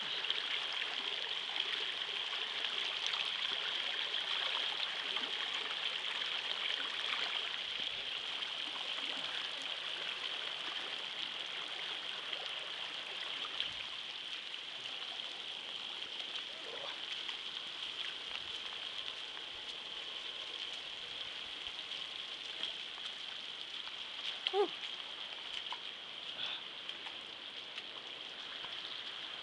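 Steady hiss of rain falling and floodwater running. There is one brief high chirp late on.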